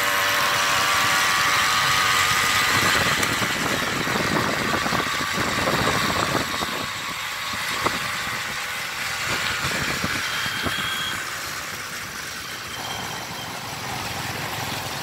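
Small two-stroke 330-class brush-cutter engine driving a motorized bicycle, running steadily with a strong, even note for the first few seconds, then fading as the bike moves off.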